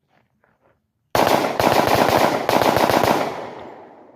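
Glock 23 .40 S&W pistol fitted with a rapid-fire trigger conversion, firing strings of shots at machine-gun rate. The shots start about a second in and run almost unbroken for about two seconds in three strings, then the echo dies away.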